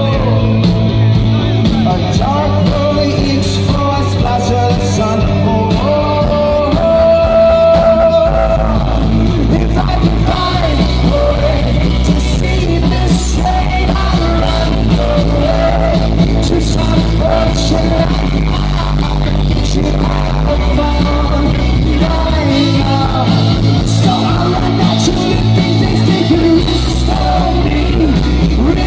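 Indie rock band playing live, with a lead singer over bass, guitars and drums.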